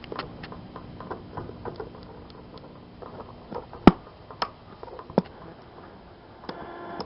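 Commodore Stereomatic solid-state radio on its dead AM band, giving only irregular clicks and faint crackle with a faint low hum under the first few seconds. There is one sharper click about four seconds in. The AM section is not working.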